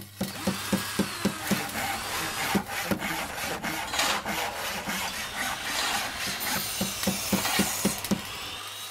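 Logo-intro sound effect of rhythmic scraping strokes on wood, like a handsaw working, about three to four strokes a second. It stops abruptly just before the end.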